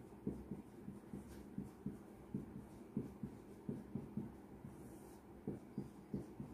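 Marker pen writing on a whiteboard: faint, irregular soft taps and scrapes, several a second, as letters are stroked out.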